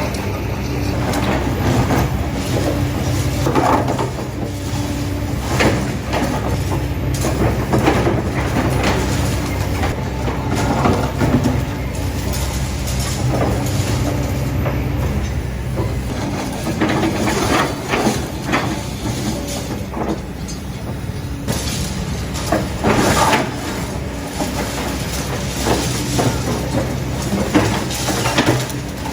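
Diesel engine of a rock-breaking machine running steadily, with irregular scraping and knocking as its steel teeth break up and drag rock and rubble.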